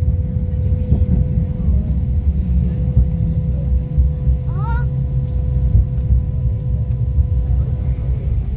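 Light rail car running along the track, heard from inside: a steady low rumble with a constant hum above it. About halfway through there is a short, rising squeak.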